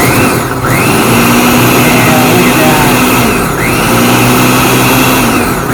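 Blender motor running at full speed, grinding whole raw eggs with their shells into a liquid. Its pitch sags and recovers a few times as the load in the jar shifts.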